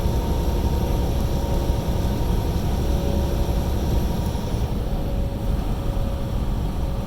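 Steady drone of engine and road noise inside a semi-truck's cab while it drives on the highway, with a few steady hums running through it.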